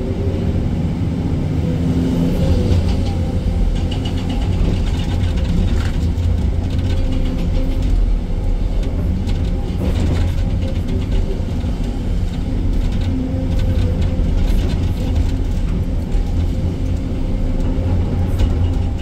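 Excavator's diesel engine running steadily, a loud constant low rumble.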